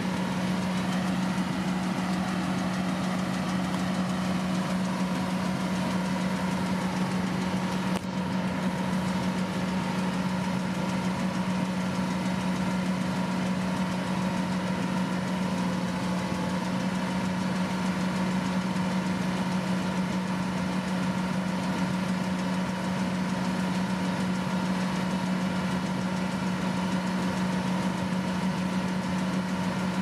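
Kubota DC-108X rice combine harvester running steadily as it cuts. Its diesel engine holds one constant pitch throughout, a steady hum with no rise or fall.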